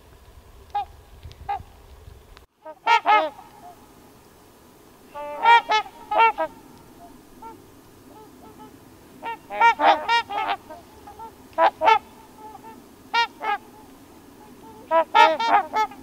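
Trumpeter swans honking: short calls in clusters of a few at a time, repeated every couple of seconds.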